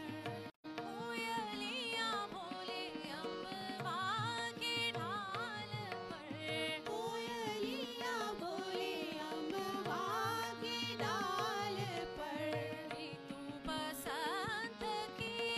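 Two women's voices singing a Hindustani classical duet, taking turns with long gliding, ornamented phrases over a steady drone. The audio cuts out for an instant about half a second in.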